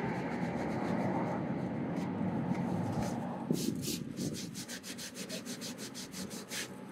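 Cloth towel rubbing hard over sticky, degreaser-wet old adhesive on a car door panel, a steady scrubbing that eases about halfway through into lighter, quicker strokes with many small scratchy ticks.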